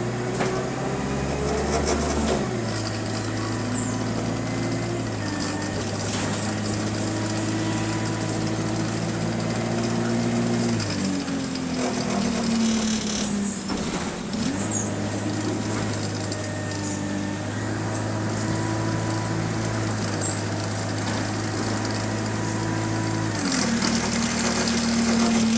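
Bus engine heard on board, running under way. Its note steps as the gearbox changes gear, falls away about 11 seconds in as the bus slows, then picks up again about 14 seconds in. The bus has a subtle exhaust leak.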